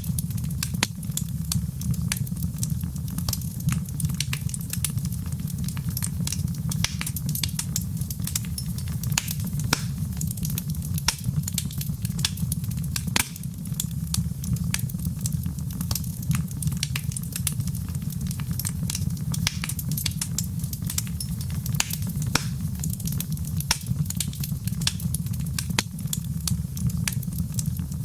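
Wood fire in a fireplace crackling, with frequent sharp irregular pops and snaps over a steady low rumble of the flames.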